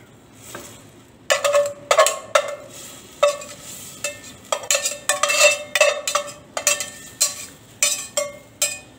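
Metal spoon scraping and knocking against the inside of a stainless steel saucepan as tomato sauce is scooped out. From about a second in comes a quick, uneven run of ringing metallic scrapes and clanks.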